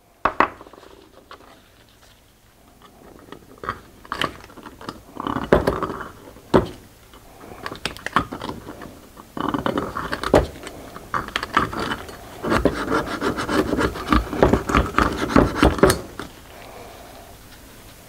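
Small metal parts handled against a brake caliper bracket as a caliper slide pin and its rubber boot are worked out: a sharp click, then bursts of rubbing and scraping that come thickest in the second half and stop near the end.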